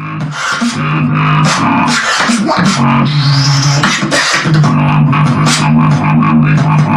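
Vocal beatboxing with throat bass: a low, buzzing held bass note that shifts between a few pitches, under rapid mouth-made kicks, clicks and hissing snare sounds.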